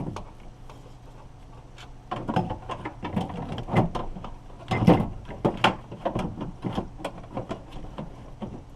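Irregular clicks, knocks and rattles of car door parts being handled and fitted back into a door during lock actuator reinstallation. There is a short lull near the start, and the loudest knock comes about halfway through.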